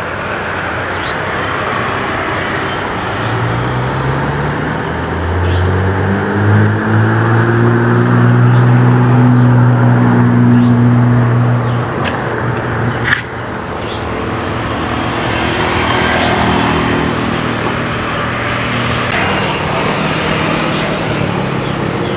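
Steady rumbling vehicle noise, with a low engine hum that swells from about three seconds in and drops away around the middle, where a single sharp knock sounds.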